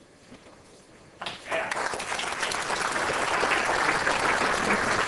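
A pause with only faint room noise, then, a little over a second in, an audience starts applauding and keeps clapping steadily.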